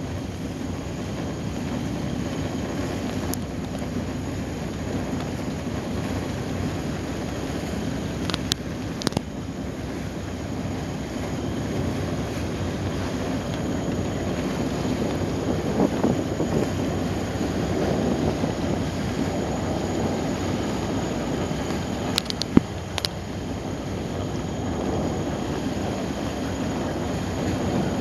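Steady low rumble of a boat's engine with water wash, and wind on the microphone. A few brief clicks about a third of the way in and again later on.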